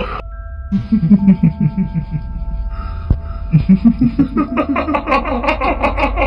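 Eerie ghost laughter, a voice chuckling in quick repeated pulses, comes in two runs with a short gap near the middle. It sits over sustained spooky tones and a low hum.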